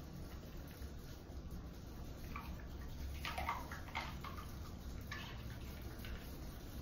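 Faint, irregular scrubbing of a toothbrush on a wet dog's teeth, a few short scrapes about two to six seconds in, over a low steady background hum.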